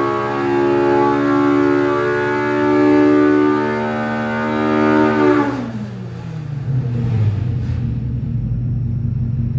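Polaris RZR Pro R four-cylinder engine on an engine dyno at full throttle, breathing through an aftermarket RPM header and 3-inch straight-through muffler, its pitch climbing steadily toward about 8,850 rpm, past the stock rev limit. About five seconds in the throttle is let off and the revs fall quickly to a lower, pulsing run.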